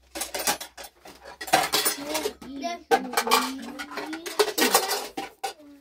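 Dishes, pots and cutlery clattering and clinking: a busy run of sharp strokes.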